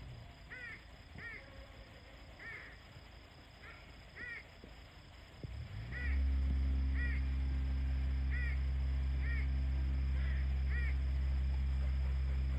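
Squirrels calling: a series of about a dozen short, arched barking calls, repeated every half second to a second. A low steady motor hum starts up again about six seconds in and is louder than the calls.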